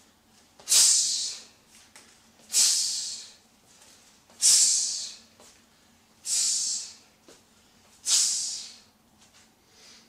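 A Taekwon-Do practitioner's sharp, hissing exhalations, one with each hooking block, five of them about two seconds apart.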